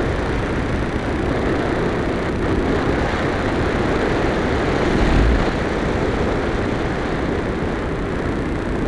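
Steady rush of air over an electric RC glider's onboard camera and microphone in flight, with a brief louder buffet about five seconds in.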